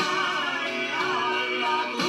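Male vocal trio singing a song in three-part harmony.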